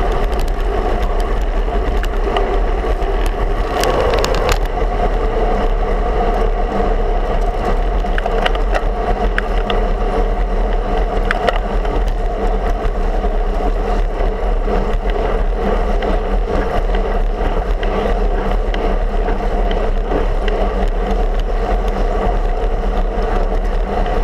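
Steady wind rush and road noise picked up by a handlebar-mounted camera on a moving road bike, with a deep rumble and a steady hum. A brief louder rush about four seconds in.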